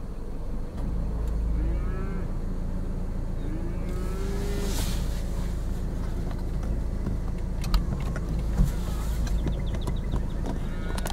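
Agitated cattle mooing: a short call about two seconds in, then a longer arching call about three and a half seconds in. A steady low rumble runs underneath, and two sharp knocks come a little before the end.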